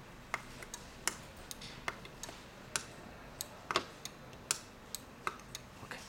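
Sharp plastic clicks of the buttons on a Nice Flor-s remote being pressed, about fifteen at uneven intervals, some in quick pairs.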